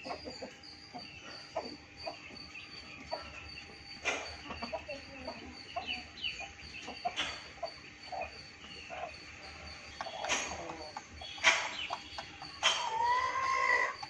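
Chickens clucking and giving short calls while an Aseel rooster pecks grain, with sharp taps of its beak against the ground and plastic feeder. Near the end comes one longer call that rises and falls, and small birds chirp in the background.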